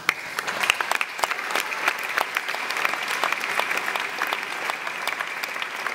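Audience applause: many hands clapping, breaking out suddenly and keeping up steadily.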